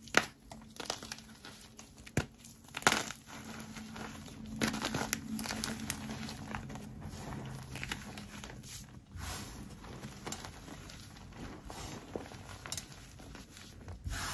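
A pressed block of laundry detergent powder with pink scent booster beads crushed and crumbled by hand. There are sharp crunches at the start and about three seconds in, then a steady soft rustle and crackle as the loose powder is squeezed between the fingers.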